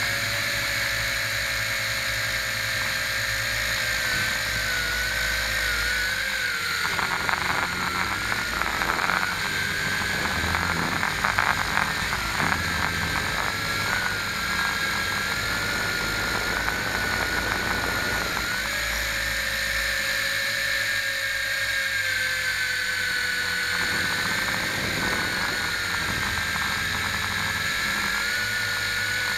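A small drone's electric motors and propellers whining as it hovers and manoeuvres, heard from its onboard camera. The pitch wavers with throttle changes. Between about 7 and 18 seconds in, the steady whine breaks up into rougher buffeting with crackles, then settles back into a steady whine.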